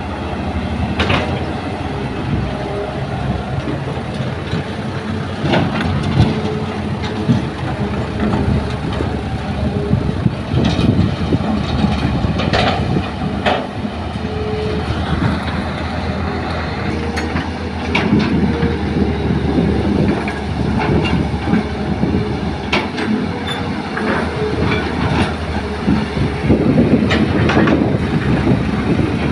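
Hydraulic excavator working: its diesel engine runs loud and steady under load while the bucket digs and swings. Irregular knocks and clatter come as soil and rocks are dug and dropped into a dump truck's steel bed, and a short whine comes and goes now and then.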